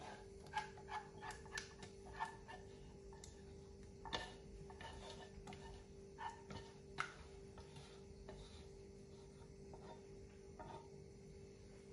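Light clicks and taps of a whisk scraping thick chocolate pudding out of a nonstick pot into a cake pan. They come in two clusters of rapid taps, then a few scattered ones, over a faint steady hum.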